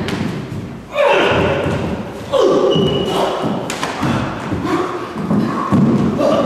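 Repeated thuds of feet stamping and shuffling on a studio floor and of bodies making contact in a choreographed stage-combat fight. Several loud thumps come in quick succession, some sharp and some heavier.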